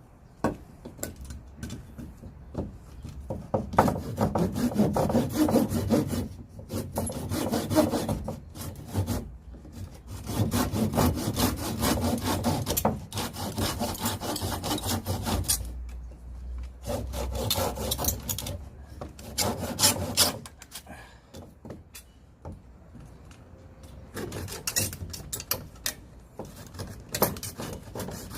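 A hand saw cutting through firewood, in several runs of quick back-and-forth strokes with short pauses between them.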